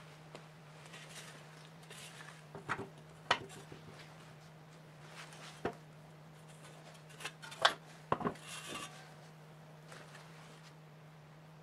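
A metal base plate handled on a wooden workbench: a few scattered knocks and clunks, the loudest a little before eight seconds in, over a steady low hum.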